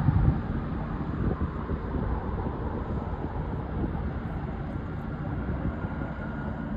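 Airliner's jet engines, a steady low roar on the runway, with wind buffeting the microphone.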